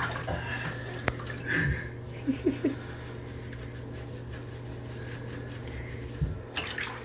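Water sloshing and dripping in a bathtub as a wet cat is held and rubbed, over a steady low hum. Three short squeaks come about two and a half seconds in, and a low thump near the end.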